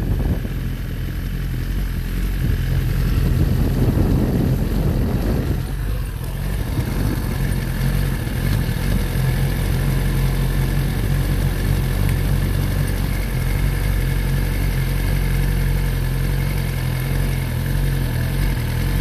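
Sport motorcycle engine running as the bike rolls slowly along, then idling steadily at a standstill from about six seconds in.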